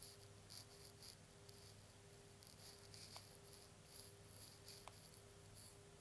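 Near silence: a faint steady electrical hum of room tone, with faint soft ticks coming irregularly, a few a second.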